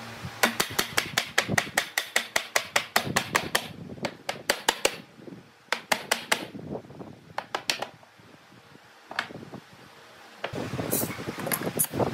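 Wood-on-wood knocking: a wooden stick tapped rapidly on the edge of a pine panel to drive it down into the frame's grooves, in fast runs of about eight taps a second, then slower, scattered taps. Near the end, a rattling scrape with a few metal clicks as bar clamps are set on the glued-up panel.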